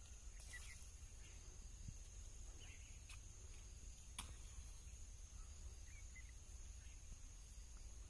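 Near silence: faint outdoor ambience with a steady high-pitched hum, a few faint bird chirps and a couple of light clicks.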